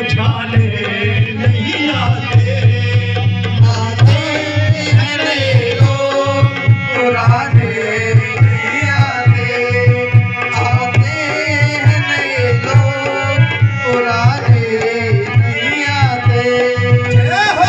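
Dholak, a two-headed rope-tensioned barrel drum, played in a steady driving rhythm, with a sustained melody line over it: instrumental accompaniment of a live bhajan.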